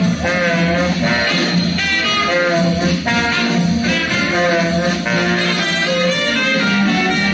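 A live dance band playing, with saxophone and brass carrying the tune over a steady rhythm section.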